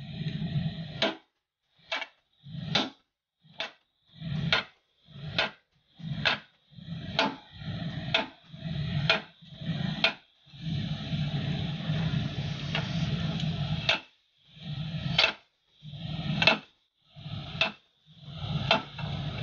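A long steel bar rammed again and again into the mounting-pin bore of a hydraulic breaker bracket to drive the pin out, giving sharp metal-on-metal knocks about once a second, with a pause of a few seconds past the middle. A low steady hum runs underneath.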